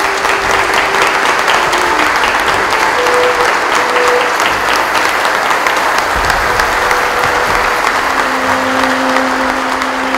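Congregation and clergy applauding together, a dense and steady clapping, with faint held musical notes underneath.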